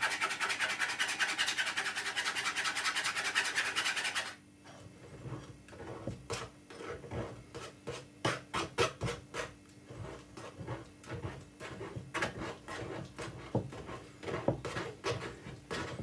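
Metal spoon scraping mashed banana pulp through a stainless-steel mesh strainer. A fast, steady scraping runs for about four seconds, then drops to quieter, separate scrapes.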